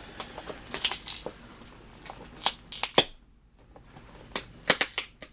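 Cardboard shipping box being pulled and torn open by hand: clusters of sharp cracks and rips, with a short lull a little after three seconds.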